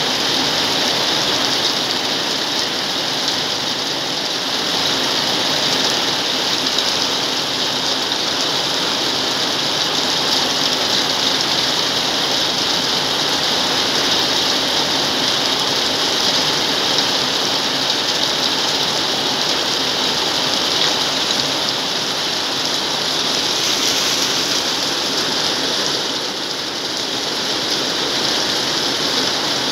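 Heavy rain pouring down steadily on corrugated metal roofing and waterlogged ground: a dense, even hiss with no letup.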